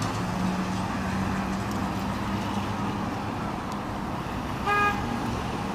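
Steady city traffic noise from cars passing and idling at an intersection, with a steady engine hum for the first few seconds. Near the end a car horn gives one short toot.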